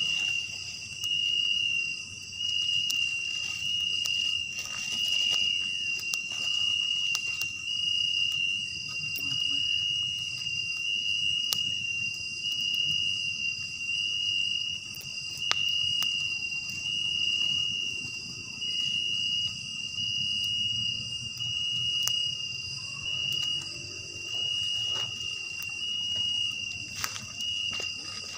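Night insect chorus in tropical forest: a steady, high-pitched cricket-like trill that swells and eases every second or two. Scattered small clicks and knocks sound through it.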